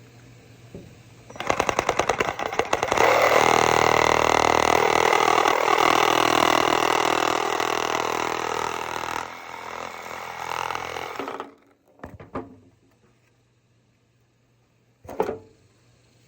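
Reciprocating saw cutting through 1 1/4-inch PVC pipe: it starts in a few short stuttering bursts, runs steadily for about eight seconds, and cuts off suddenly. A couple of short knocks follow.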